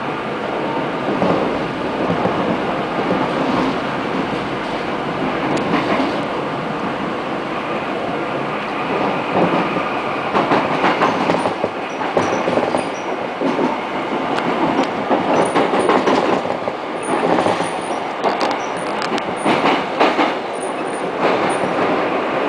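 Rotem-built Korail 5000-series (311000-series) electric train on Seoul Subway Line 1 running at speed, heard from inside the car: a steady rumble with wheels clicking over rail joints, the clicks busier about halfway through, and brief faint high wheel squeaks in the second half.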